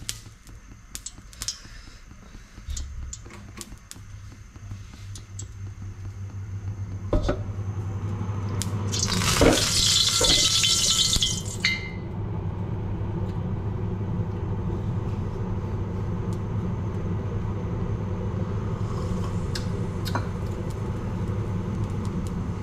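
Gas stove burner running under a black iron wok heating a little oil: a steady low hum and rush. A loud hiss lasts about two seconds near the middle.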